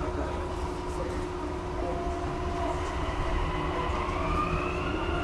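Dubai Metro train accelerating away from a station, heard from inside the carriage: steady low rumble under the electric traction motors' whine, which rises in pitch about four seconds in as the train picks up speed.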